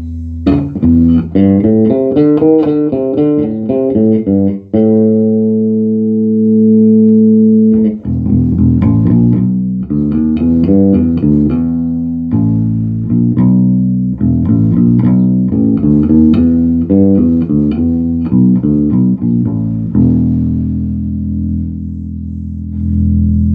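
Electric bass guitar played through a Markbass Little Mark 58R bass amp, working again after its power supply was repaired from a 230 V overvoltage failure. Quick runs of notes, a note held for about three seconds around five seconds in, more runs, and a long low note held near the end.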